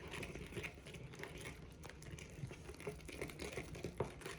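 A spoon stirring clear-glue slime as activator is worked in, making soft, irregular small clicks and sticky sounds.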